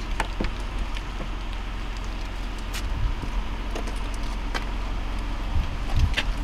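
Steady low rumble of the Ford Interceptor Utility idling, heard close to its tailpipe, with a few scattered light clicks from the power cord's plug being handled at the bumper inlet.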